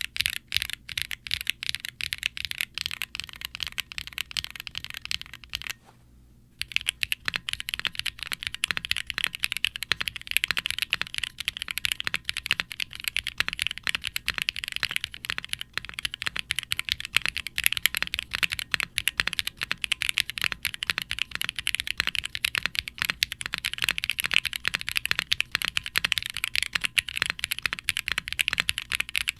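Typing on a mechanical keyboard with HMX Sonja linear switches (POM stems, PA66 housings), GMK ABS keycaps, an FR4 plate and a brass weight in an undampened aluminium Wilba.tech Salvation case. It makes a rapid, continuous run of clacky keystrokes with some resonance, more than the owner expected from this case. The typing stops for about a second around six seconds in.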